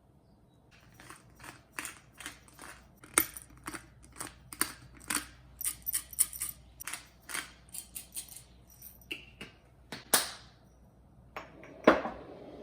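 A quick, irregular series of light clicks and taps, about two or three a second, followed near the end by a louder knock and a brief rustle.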